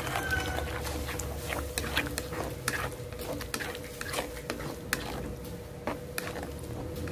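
A ladle stirring mushrooms and broth in an aluminium wok, with irregular light clicks and scrapes of the ladle against the metal.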